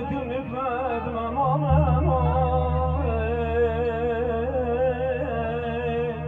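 Live wedding music through a PA: a male voice sings a slow, wavering, ornamented melody over electronic keyboard accompaniment that holds steady low bass notes, the bass shifting about a second and a half in. The melody breaks off just before the end.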